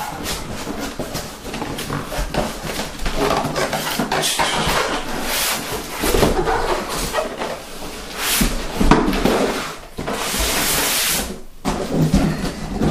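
Cardboard box and styrofoam packaging being handled: rustling, scraping and light knocks throughout, with a long loud scrape about ten seconds in as the foam-packed block slides out of the box.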